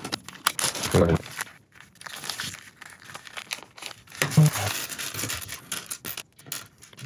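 Plastic bags of toy building blocks crinkling and rustling as they are handled and torn open, in irregular bursts.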